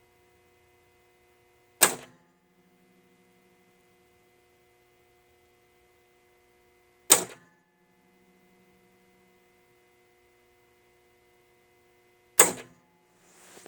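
A pinball machine clacking sharply three times, about five seconds apart, each clack ringing briefly, over a faint steady electrical hum.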